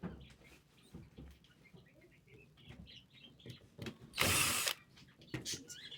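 Power drill spinning in one short burst of about half a second, a little after four seconds in, backing out a screw. Before it come light clicks of the drill and parts being handled.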